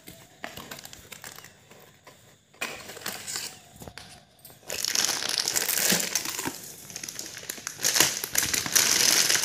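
Cardboard packaging being opened and handled with light rustles and clicks, then, from about five seconds in, loud crinkling of clear plastic wrap as it is pulled off a plastic mini chopper.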